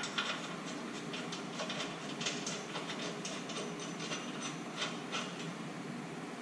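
Hand socket ratchet clicking in short, uneven runs as a bolt is turned.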